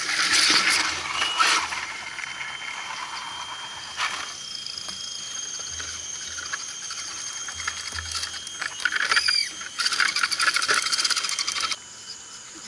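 Scale RC crawler truck climbing a dirt ledge: its electric motor and tyres scrabble and rattle over dirt and rock in three spells, the first straight away, a brief one near the middle and a longer one near the end that cuts off abruptly.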